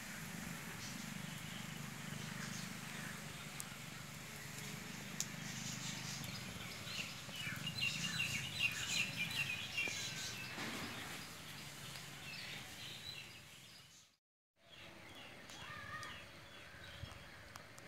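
Birds chirping over steady outdoor background noise, with a run of rapid high chirps about halfway through. The sound cuts out for a moment near the end, then the chirping resumes.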